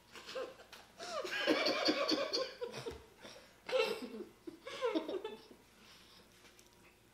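People laughing with their mouths stuffed with marshmallows: a long bout of laughter about a second in, then two shorter bursts.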